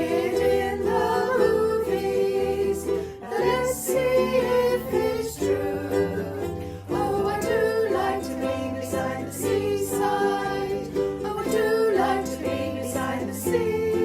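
Ukulele strumming over a bass line in an upbeat song, an instrumental passage without sung words.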